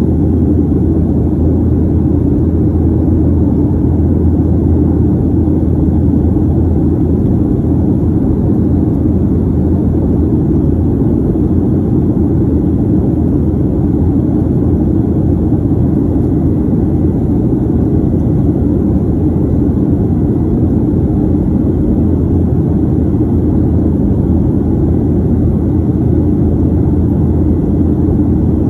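Steady roar of a Boeing 737's jet engines and rushing air, heard from inside the passenger cabin during the climb after takeoff. A deep, even drone with no change.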